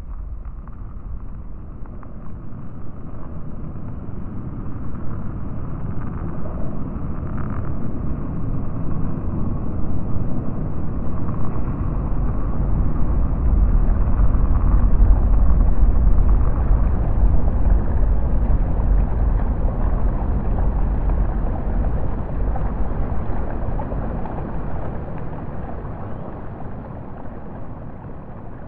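A low, noisy rumble from an ambient soundscape built from field recordings. It swells to its loudest about halfway through and then slowly fades.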